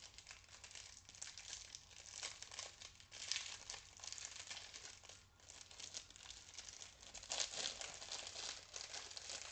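Small plastic packaging crinkling and rustling as it is opened by hand, with a brief lull about five seconds in.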